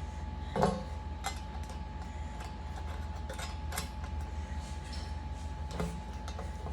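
Scattered small clicks and taps of metal hardware being handled as a nut is fitted onto a screw, the sharpest about half a second in, over a steady low hum.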